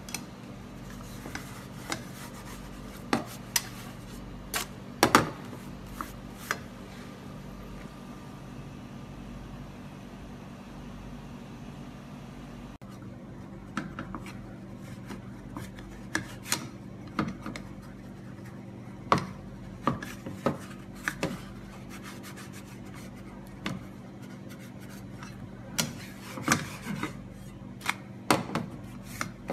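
Scattered sharp clicks, taps and light scrapes of a frying pan and cooking utensils on a gas stove, over a steady low hum. The loudest knocks come about five seconds in.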